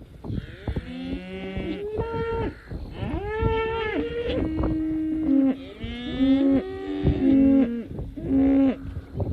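Several cows mooing, their calls overlapping, some long and steady, others bending in pitch.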